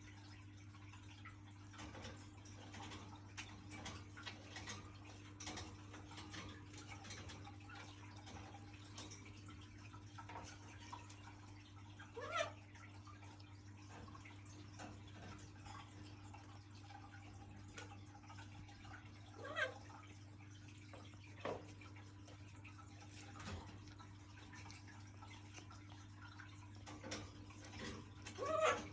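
Blue-and-gold macaw eating a grape: many small wet beak clicks and squishing sounds throughout, with a few brief, louder squeaky sounds scattered through, over a steady low hum.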